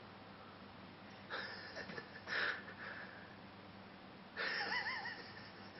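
A few short breathy bursts, like exhalations or gasps; the last, about four and a half seconds in, has a wavering pitch like a soft voiced "ooh".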